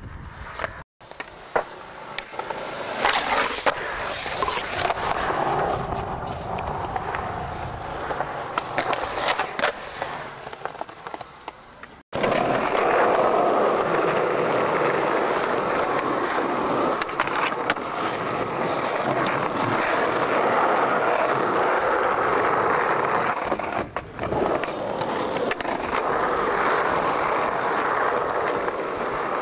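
Skateboard wheels rolling over concrete, a steady rumbling roll, with sharp clacks of the board now and then from pops and landings.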